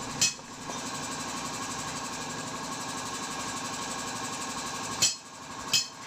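A steady mechanical hum, like an engine running at idle, broken by three sharp knocks: one just after the start and two close together near the end.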